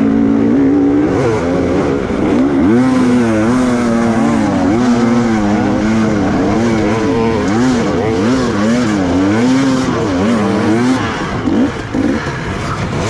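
Trail motorcycle engine revving hard under load on a muddy climb. It holds steady for a moment, then rises and falls over and over, about once a second, as the throttle is worked.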